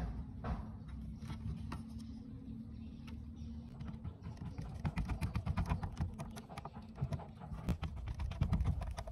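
Screwdriver turning the screw that fastens a power transformer's bracket to a cassette deck's plastic chassis, with a run of quick clicks and scrapes that grow denser about halfway through.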